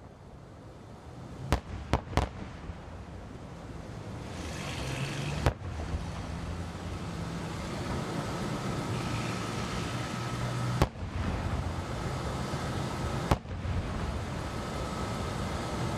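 Fireworks going off: sharp bangs, three close together about two seconds in, then single bangs spread out, over a steady background noise that grows louder.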